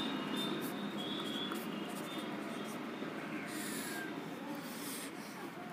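Marker pen squeaking and scratching on a whiteboard in short strokes, with thin high squeaks in the first second or so and a falling squeak about three seconds in, over a steady background noise.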